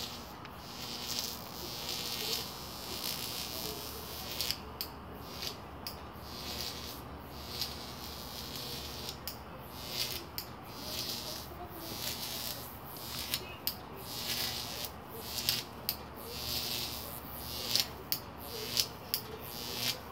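Night insects chirping in a steady, pulsing chorus, with a few sharp clicks near the end.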